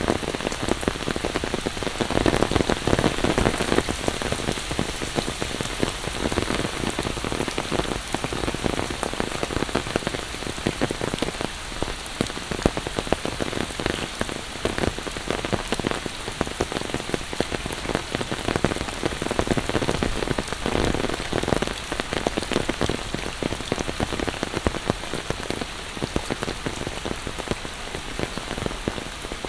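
Heavy monsoon rain falling steadily, a dense patter of drops with brief louder swells.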